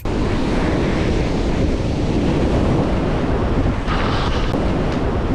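Loud, steady wind buffeting an action camera's microphone over choppy ocean surf, starting abruptly.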